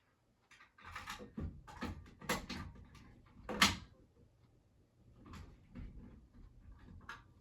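Irregular knocks, clicks and clatters of hard objects being handled while searching for a key, with the loudest knock about three and a half seconds in. No alarm is sounding.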